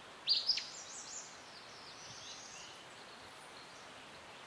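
Birds chirping over a steady outdoor background hiss: a quick cluster of high, falling chirps about a third of a second in, then fainter scattered chirps.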